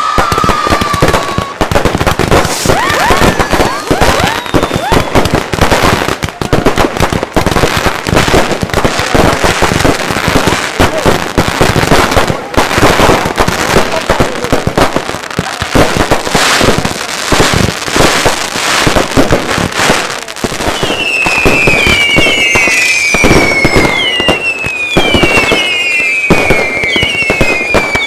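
Fireworks and firecrackers going off nonstop in a dense stream of bangs and crackling. From about three-quarters of the way in, a quick series of whistling fireworks shriek, each whistle sliding down in pitch.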